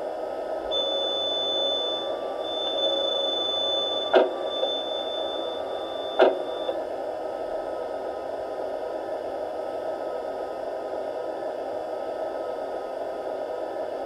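Sound decoder of an LGB model RhB Ge 6/6 I 'Crocodile' electric locomotive, standing still and playing through its speaker: a steady rushing hum. A high, steady whine with short breaks runs through the first half, and two sharp clicks about two seconds apart come near the middle.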